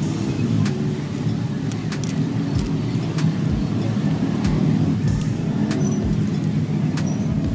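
Steady low rumble, like a running vehicle engine, with faint scattered clicks of a pry tool against a cracked phone's frame.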